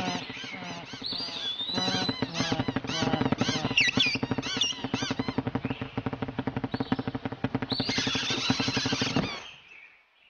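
Cartoon small birds squawking and chattering in a fast, repeated chorus over a steady low hum, cutting off abruptly about nine seconds in.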